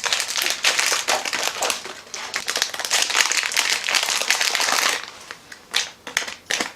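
A gift bag crinkling and rustling as it is rummaged through for about five seconds, then a few short separate rustles.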